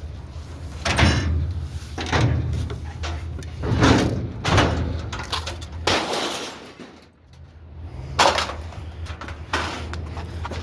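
Pieces of scrap metal being thrown onto a scrap pile: a string of about seven separate crashes and clangs, one every second or two, over a steady low hum.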